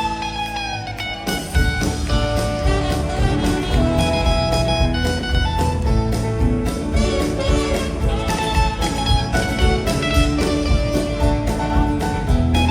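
Live country band playing an instrumental break, a guitar taking the lead over bass and drums with a steady beat and no singing.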